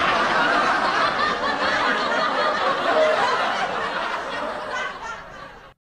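Canned group laughter, a dense laugh track that slowly fades, then cuts off abruptly near the end.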